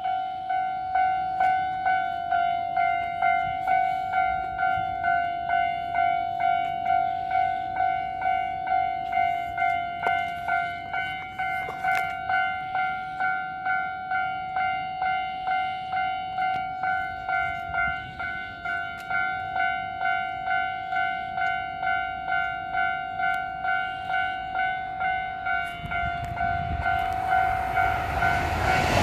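Japanese railway level crossing's electronic warning bell ringing, a repeated ding about twice a second, the signal that a train is approaching. Over the last few seconds the rumble of the oncoming train rises under it.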